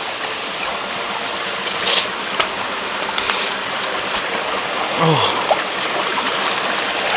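Steady rush of a small monsoon stream's flowing water, with a few brief splashy bursts about two and three seconds in.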